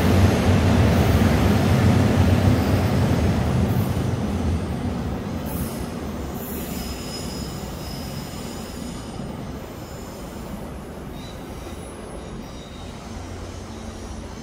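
Electric commuter train running past and away: a loud low rumble that fades over the first four or five seconds. Thin high wheel squeals follow in the middle, over a quieter steady rail noise.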